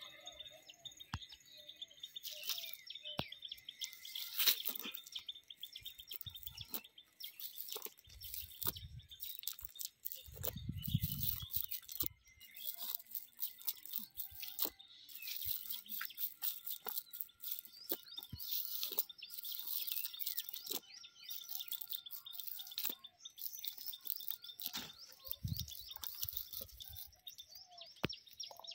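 Birds chirping steadily, with scattered sharp clicks and rustles from a nylon cast net being handled and snail shells dropping from it onto dry ground.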